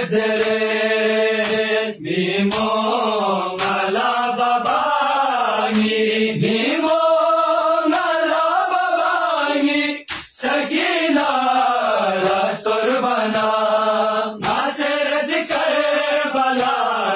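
A group of men chanting a noha, a Shia lament for Karbala, in Balti to a slow, sweeping melody, with a brief break about ten seconds in. Sharp strikes sound through the chant, the hands of the matam group beating their chests.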